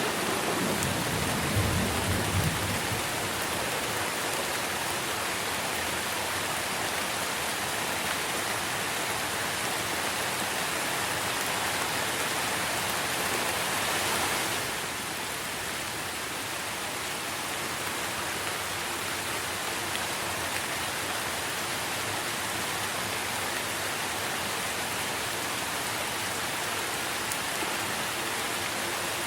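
Steady rain falling on tree foliage, an even hiss. A low rumble sounds in the first two seconds or so, and the rain gets slightly quieter about halfway through.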